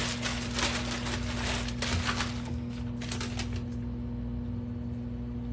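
Plastic poly mailer bag crinkling and rustling as it is handled and torn open, dense crackling for about the first three and a half seconds, then only faint handling over a steady low hum.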